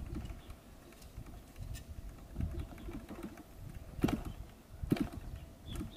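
Wind rumbling on the microphone, with light handling knocks from the balsa model biplane's airframe and two sharp clicks about four and five seconds in.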